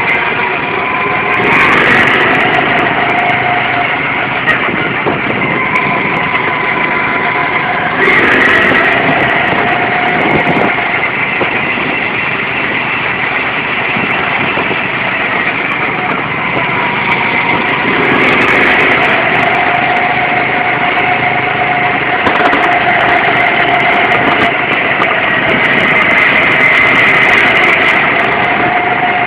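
Go-kart engine running at speed, heard from the driver's seat, its pitch rising and falling again and again as the throttle is opened and eased around the track.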